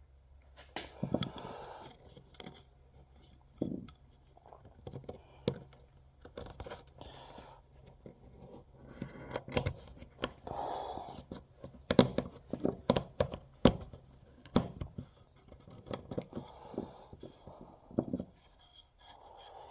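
Scattered clicks, taps and scraping of small objects being handled, with several sharper knocks in the second half.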